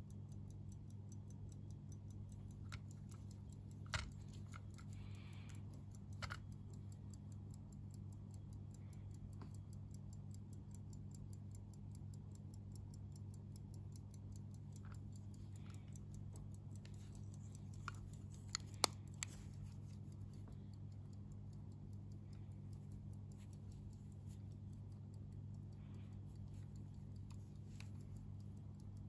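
Antique key-less pocket watch in a silver hunter case ticking quickly and evenly, with a few louder clicks as the case is handled. A steady low hum runs underneath.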